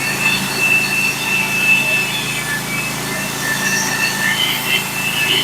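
Band sawmill running steadily under its engine, its blade cutting a flitch off a white pine log, with a thin high whine from the band over the engine hum.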